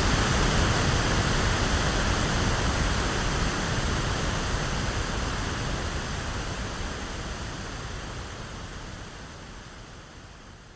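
Electronically generated pink noise, a steady even hiss heavier in the low end, fading out gradually over the whole stretch.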